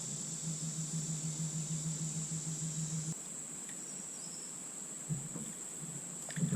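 Steady high-pitched chorus of insects, crickets or similar, trilling continuously. A low steady hum runs beneath it and cuts off about three seconds in.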